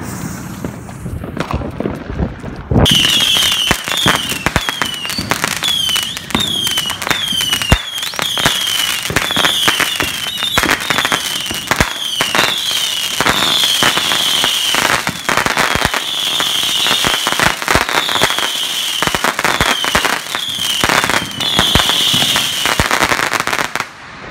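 A 300-shot Crackling Saturn Missile battery firing in rapid succession: dozens of short falling whistles mixed with dense sharp crackling pops. It starts about three seconds in and cuts off shortly before the end.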